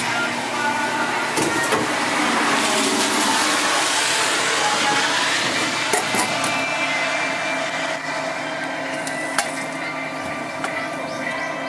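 Retro udon noodle vending machine running through its cooking cycle: a steady machine hum with several steady tones, and a loud hiss from about a second and a half in until about five seconds in. Sharp clicks and knocks come about six and nine seconds in at the delivery hatch, as the finished bowl is reached for.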